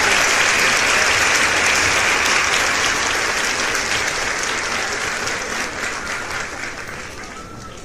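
A small group applauding; the clapping slowly fades and thins out to scattered single claps toward the end.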